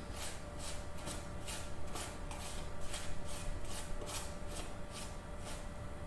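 A metal spoon stirring and scraping dry, crumbly cookie mix and butter in a plastic tub, in quick rhythmic strokes of about three a second.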